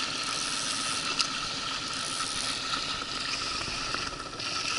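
Steady rush of river water around an inflatable boat with a faint steady hum, as a small hooked taimen thrashes and splashes at the surface beside it; a brief splash about a second in.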